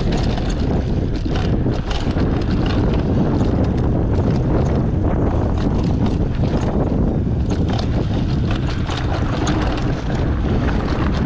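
Wind rumbling on the camera's microphone as a mountain bike descends at speed, with frequent clicks and rattles from the bike and its tyres on the rough, stony track.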